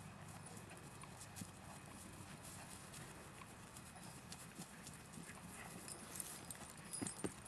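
Hoofbeats of a ridden grey horse moving briskly over grass, faint clicking steps with a few sharper ones near the end, over a faint steady low hum.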